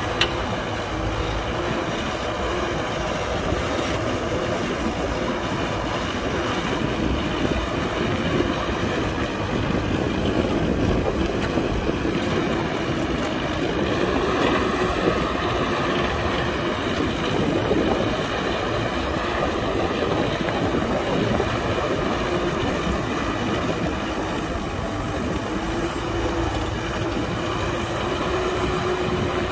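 Heavy diesel earthmoving machinery running steadily, the excavator working as it digs and loads dirt: a continuous engine drone with a steady hum and slight swells in level midway.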